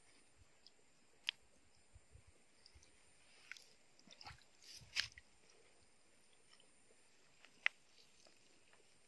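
A few sharp wet pops and smacks from fish gulping at the surface of a muddy water hole, over near silence: one about a second in, a cluster of smaller smacks around four to five seconds in, and another pop near the end.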